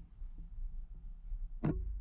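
Two light clicks or knocks, a faint one at the start and a louder, sharper one near the end, over a low steady hum.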